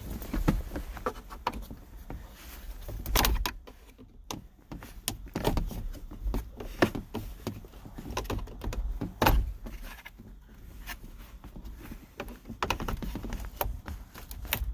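Irregular clicks and knocks of hard plastic dashboard trim being worked loose and handled.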